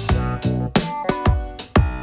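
Background music with a steady electronic beat: sustained synth tones and regular drum hits.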